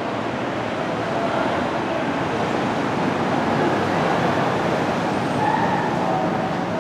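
Steady outdoor background noise: a continuous rumble and hiss with a few faint short tones mixed in near the end.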